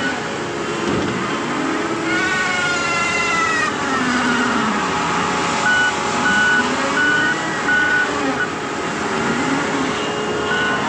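Diesel engine of a heavy earthmoving machine working, its pitch rising and falling as it takes load. A reversing alarm beeps evenly for about two seconds, starting about six seconds in.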